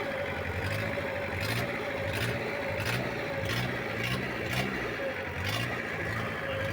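Isuzu diesel generator engine running steadily just after starting up, its note pulsing regularly about every two-thirds of a second.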